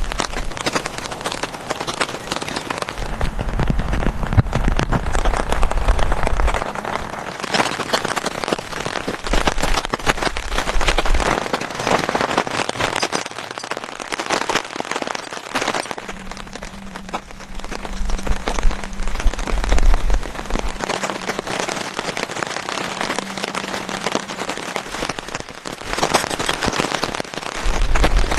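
Heavy rain falling steadily, a dense patter of drops striking a surface, with a low rumble coming and going several times.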